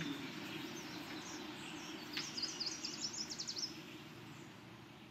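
Outdoor ambience with a steady low background hum, and a bird singing a quick run of high, repeated chirps starting about two seconds in and lasting about a second and a half. The sound fades out toward the end.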